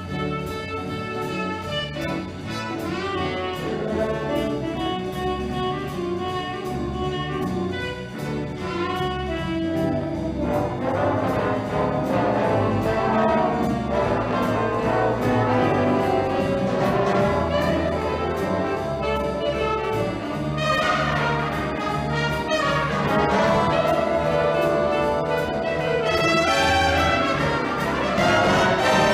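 Big-band music with brass section, trumpets and trombones playing over a steady swing beat.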